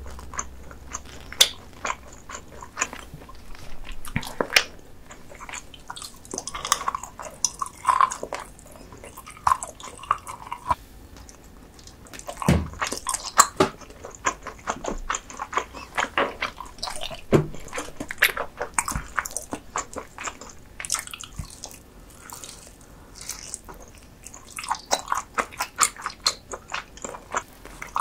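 Close-miked eating sounds: biting and chewing food, with many irregular sharp mouth clicks and smacks.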